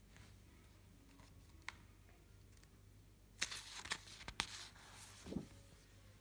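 A picture-book page being turned: a short paper rustle with a few crisp flicks, starting about three and a half seconds in and lasting about two seconds.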